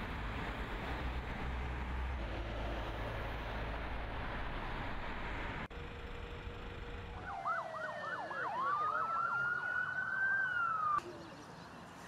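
A steady rushing noise for about six seconds, then an emergency vehicle siren: a run of fast rising yelps followed by a long rising wail that cuts off suddenly near the end.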